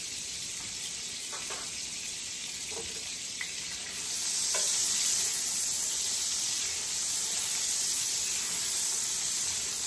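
Lemon slices sizzling in hot oil and melted butter in a ridged grill pan. The sizzle gets louder about four seconds in, as the slices are moved around in the fat with a spatula.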